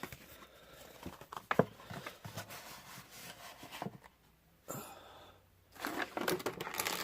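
Plastic toy packaging crinkling and rustling as a small accessory is worked free by hand, with scattered sharp clicks and taps, the loudest about a second and a half in.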